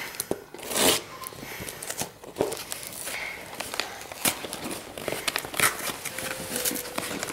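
Packaging of a shipping box being handled and pulled at: rustling and crinkling with scattered taps and knocks, one louder knock about a second in.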